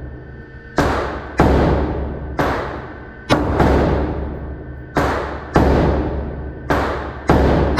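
Slow string of about nine 9 mm pistol shots, spaced irregularly half a second to a second and a half apart. Each shot is a sharp crack that rings on in a long echo off the walls of an indoor range.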